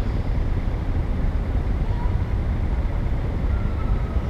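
City street traffic ambience: a steady low rumble of passing vehicles, with a couple of faint brief higher tones over it.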